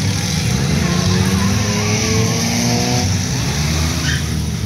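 Engines of several beat-up race cars running on the speedway, a continuous loud drone with engine notes rising as cars accelerate.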